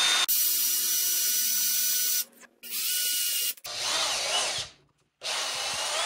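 Cordless drill boring into the opening of a metal motorcycle brake-lever switch housing to widen it, run in four bursts with short pauses between, its motor whine holding steady within each burst.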